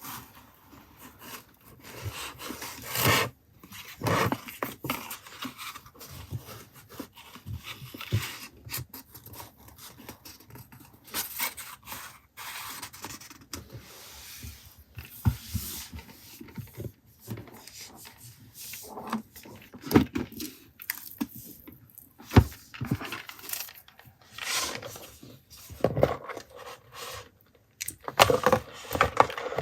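Paper and packaging handled close to the microphone: irregular rustling, scraping and rubbing with scattered light taps.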